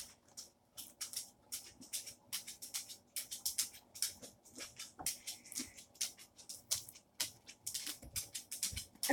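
Cardboard toy box and its plastic packaging being handled and picked at, with irregular scratching, rustling and crinkling as the sides are worked open.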